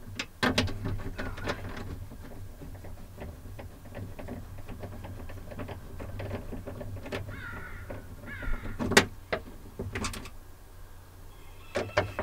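Hand tool clicking and knocking against the sheet-metal door frame of a Chevrolet Avalanche as the bolts holding the power window regulator assembly are loosened, over a steady low hum. A little past halfway come two short, harsh squawks, falling in pitch.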